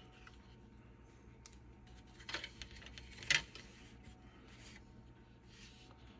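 Light handling sounds of a plastic model car chassis being moved about on a paper sheet: a short rustle a little past two seconds in, a sharp plastic click about a second later, then a few faint scratches.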